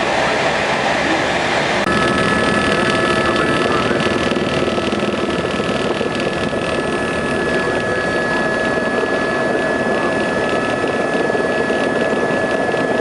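Tour helicopter running steadily with a loud, constant engine and rotor din. A steady high whine joins in about two seconds in.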